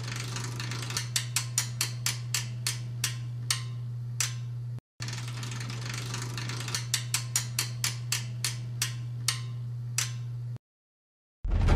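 Film projector sound effect: a steady low motor hum with a run of sharp clicks that slow down, the same pass heard twice in a row. Near the end it cuts to silence and a loud boom begins.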